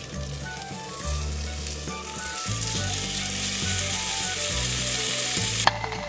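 Steak frying in a hot sandwich maker on an induction cooktop: a steady, juicy sizzle. Near the end the sizzle drops off sharply with a click.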